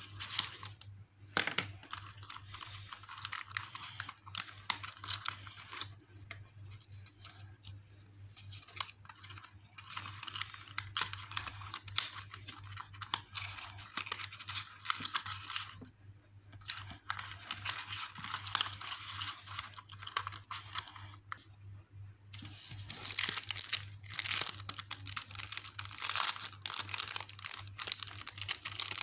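Hands handling a sticker set's clear plastic wrapping and cardboard packaging: crinkling and rustling in stretches with short pauses, loudest over the last several seconds. A low steady hum runs underneath.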